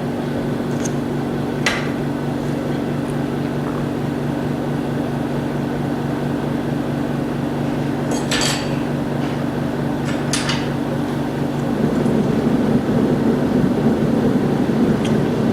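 Steady machine hum with a few low tones, turning rougher and louder about twelve seconds in, with three light clicks and taps of a tool against the phone's parts.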